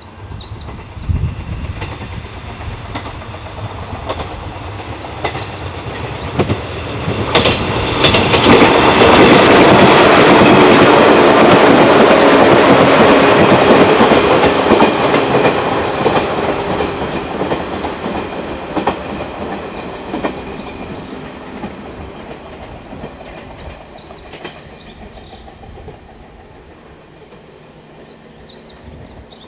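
Electric multiple-unit train approaching, passing at speed and fading into the distance, its wheels clacking over rail joints. A bird chirps faintly near the start and near the end.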